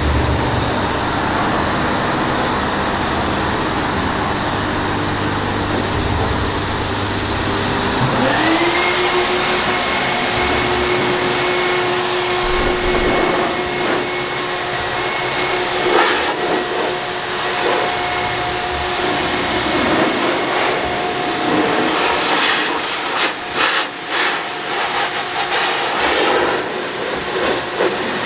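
Electric car-drying blower (air chamois) blowing a steady rush of air. About eight seconds in, its motor spins up with a rising whine that settles to a steady pitch, and near the end the blast turns uneven and fluttering.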